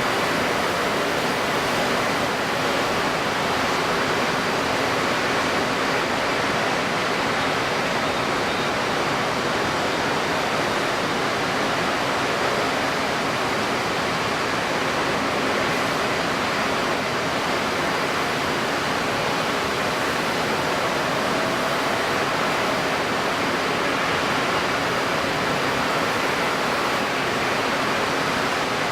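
Steady, even rushing of strong wind and choppy water, with no distinct events.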